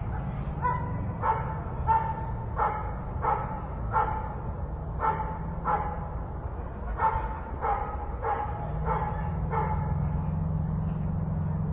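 A dog barking repeatedly, about a dozen short barks in quick runs, over a steady low rumble that gets louder about eight seconds in.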